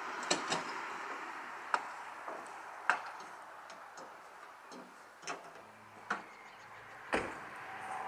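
Steady outdoor background hiss with several sharp, irregularly spaced clicks or knocks. The loudest come just before three seconds in and just after seven.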